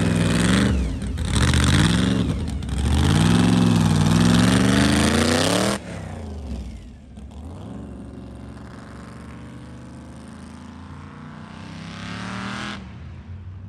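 Supercharged V8 of a pro-street C4 Corvette revving loudly in uneven blips as the car pulls away and accelerates. About six seconds in the sound drops suddenly to a quieter, more distant engine note that rises steadily in pitch as it speeds off.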